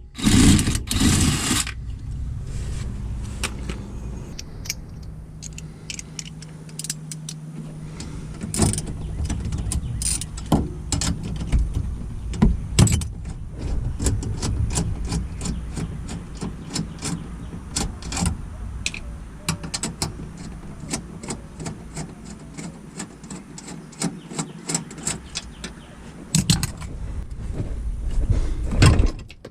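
Hand tools working on car suspension parts: many sharp, irregular clicks, clinks and knocks of metal on metal, with some scraping. The knocks are loudest about a second in and again near the end.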